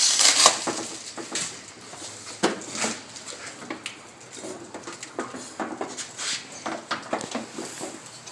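Plastic film crinkling briefly, then scattered light clicks and knocks of hard plastic as a replacement headlight assembly is handled and fitted.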